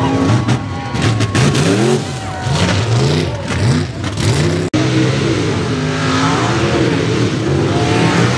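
Street-class mud racing trucks' engines at wide-open throttle, the revs rising and falling over and over as they race. The sound cuts out for an instant about halfway through, then carries on.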